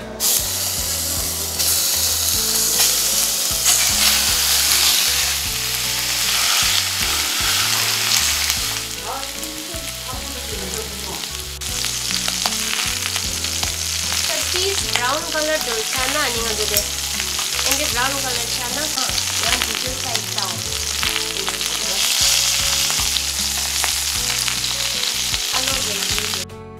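Pork belly pieces sizzling loudly as they fry in their own rendered fat in a pot, with no oil added. The sizzle starts abruptly and cuts off just before the end.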